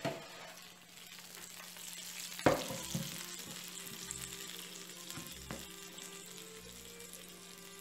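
Chicken pieces and batter sizzling steadily in a hot enamel baking pan just out of a 200 °C oven. There is one sharp knock about two and a half seconds in.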